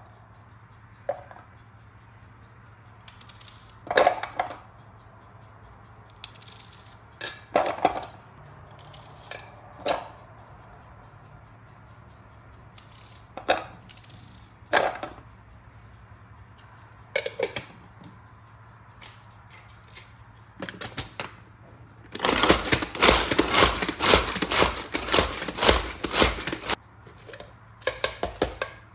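Household objects being handled: scattered single knocks and clicks, then about five seconds of rapid clattering late on.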